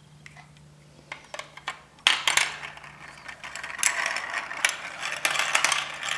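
Marbles rolling and clattering down a plastic Hubelino-style marble run. A few separate clicks come first, then from about two seconds in a dense, continuous rattle of marbles running through the track pieces.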